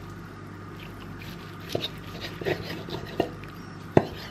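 Kitchen knife slicing through a cooked rump steak on a wooden chopping board, with a few separate knocks of the blade against the board. The sharpest knock comes about four seconds in.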